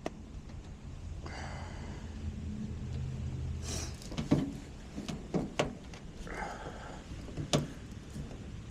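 Work sounds: a low steady hum for the first few seconds, then several sharp knocks and clicks, such as tools or metal parts being handled, with a couple of short scraping rustles.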